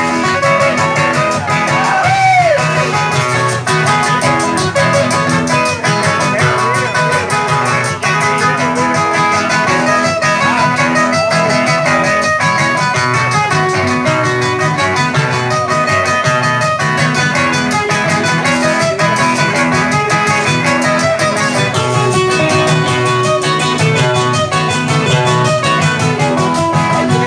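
Live guitar trio playing a merengue, with acoustic guitars carrying the melody and rhythm at a steady, even volume. About two seconds in, a brief sliding note rises and falls.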